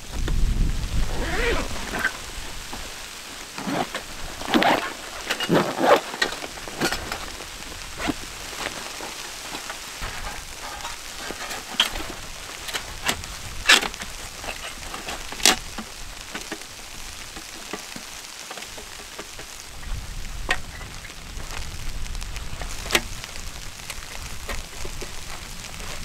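Handling a small metal wood stove: a carry bag rustling as it is unzipped, then sharp metal clinks and clanks as the stove is lifted out and its panels opened. Wind gusts rumble on the microphone near the start and again in the last few seconds.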